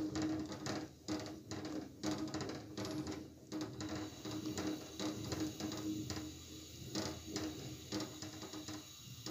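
Wooden spatula scraping and knocking against the sides and bottom of a large metal pot as thick, reduced milk is stirred continuously for khoya. Irregular strokes come about two a second, over a steady low hum.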